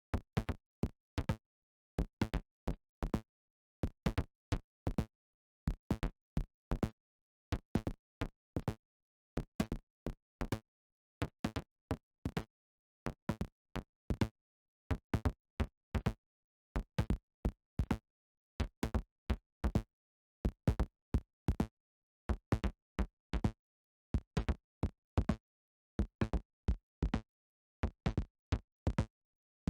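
Synthesized percussion from the Surge software synthesizer: short, dry knock-like hits with most weight in the low end, playing as a looped pattern of a few hits that repeats about every two seconds, with digital silence between hits.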